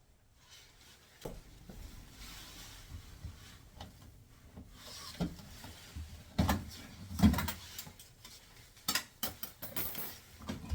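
Handling noises from work on a washing machine's door and panel: scattered knocks and clicks with light rubbing, two heavier knocks about midway and a quick run of clicks near the end.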